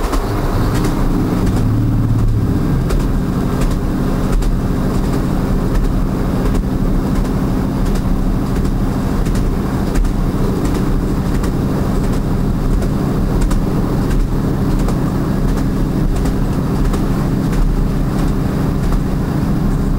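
Train running over jointed rail track: a steady low rumble with a few level tones, and faint clicks as the wheels cross the rail joints.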